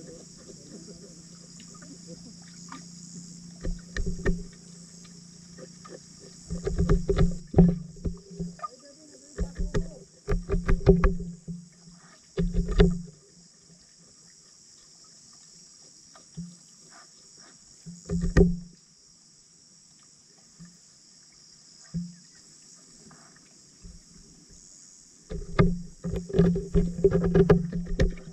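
Tilapia feeding at floating kangkong leaves, heard underwater as clusters of rapid clicks and pops, loudest near a quarter and near the end, over a steady low hum and hiss.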